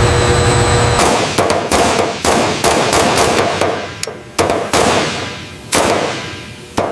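A steady machine hum cuts off about a second in. It gives way to a series of hammer blows on metal: about a dozen irregular strikes, each ringing out and fading before the next.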